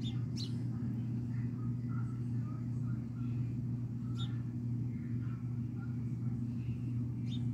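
A steady low machine hum, with faint short chirps scattered over it.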